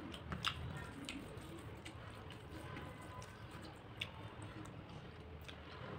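Eating by hand: scattered small clicks and wet smacks of chewing and of fingers mixing rice on a steel plate, over a low steady hum.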